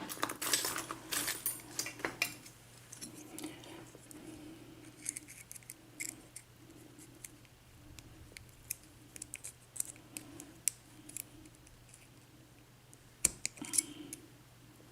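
Light metallic clicks, ticks and scrapes from a brass lock cylinder being handled as a key locks it back up and its retaining clip is worked off. The clicks are scattered and irregular, busiest near the start, with a sharp louder pair near the end.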